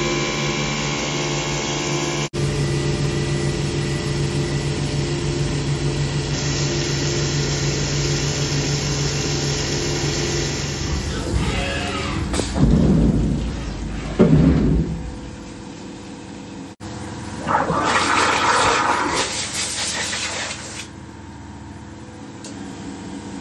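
Haas CNC vertical mill machining the top face of a steel workpiece under flood coolant: the spindle runs with a steady hum and whine over the hiss and splash of coolant and cutting noise. Louder swells of cutting and spraying come near the middle and again later, and the machine is quieter near the end.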